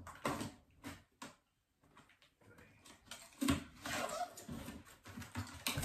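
Large cardboard box being handled and opened: a few sharp knocks and clicks in the first second or so, then scraping and rustling of cardboard and packing tape from about three seconds in.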